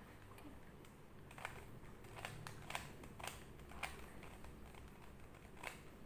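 Plastic 3x3 Rubik's cube having its layers turned, making a series of sharp clicks, about six, spaced unevenly.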